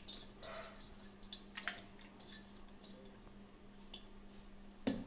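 Light clicks and taps of a steel bowl and a steel mixer-grinder jar as soaked toor dal is tipped into the jar, with one louder knock near the end. A faint steady hum sits underneath.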